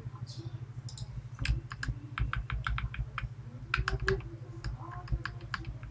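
Quick, irregular small clicks and taps of metal lock parts being handled as a Medeco Biaxial lock is taken apart, over a steady low hum.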